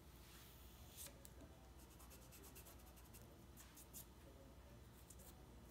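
Faint pencil scratching on heavy tag board: a series of short marking strokes over a low room hum.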